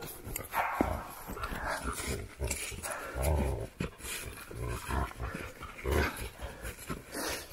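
Dog growling in play during a tug-of-war over a rubber toy, in short rough bursts that come and go.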